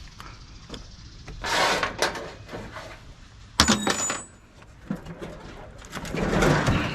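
Metal parts of a gas grill being handled. There is a scraping rustle, then a sharp metallic clank with a brief high ring about three and a half seconds in, and more rustling near the end.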